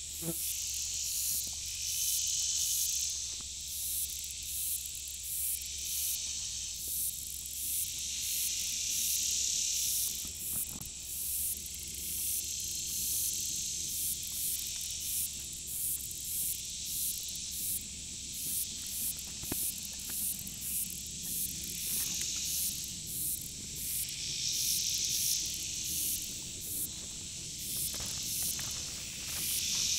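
A dense summer insect chorus: high, rapid chirring that pulses about once a second and swells now and then. A few faint clicks and knocks come through it.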